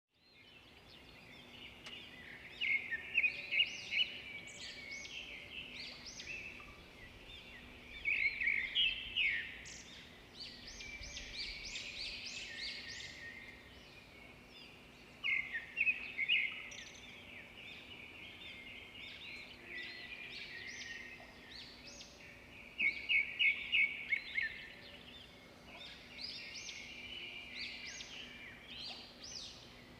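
Songbirds singing and chirping outdoors, with a loud burst of fast repeated notes recurring about every seven seconds amid scattered higher chirps.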